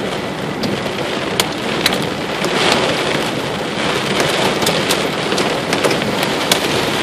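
Heavy rain mixed with small pea- to nickel-size hail hitting a car's windshield and roof, heard from inside the cabin: a steady loud hiss of rain with many sharp ticks scattered through it as hailstones strike.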